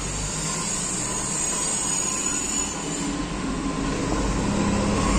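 Steady rushing background noise with a low rumble, unbroken by any distinct knock or click.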